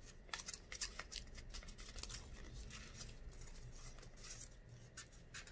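Paper rustling and crackling as a folded paper airplane is handled and a torn paper tab is slipped into its folds: many short, faint crackles.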